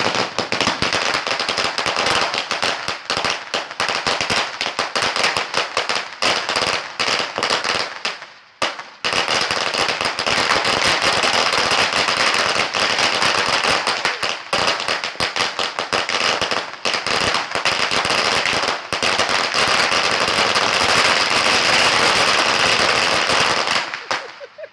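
Firecrackers going off in a long, dense run of rapid crackling pops like machine-gun fire. There is a brief lull about a third of the way through, then they carry on and stop abruptly near the end.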